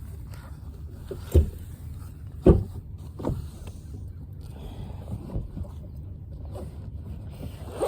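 Wind rumbling on the microphone, broken by two sharp thumps about a second and a half and two and a half seconds in, and a lighter knock just after.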